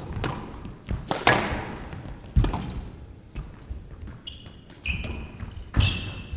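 Squash rally: the ball cracking off rackets and the court walls, with the hardest strikes about a second in, near two and a half seconds and near the end, each ringing briefly. Short high squeaks of court shoes on the floor come about four to five seconds in.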